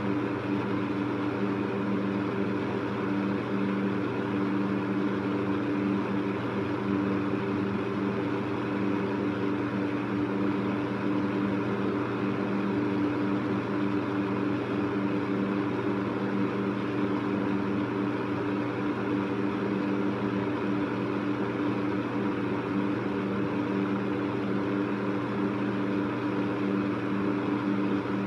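Electric fan running steadily: a motor hum with a few steady tones over the even whoosh of the blades' airflow.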